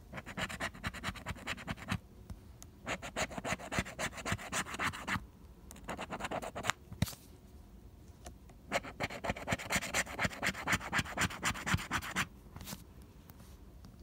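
Plastic scratcher tool scraping the coating off a lottery scratch-off ticket in quick strokes. The scraping comes in four bursts with short pauses between, and there is a single sharp tick about seven seconds in.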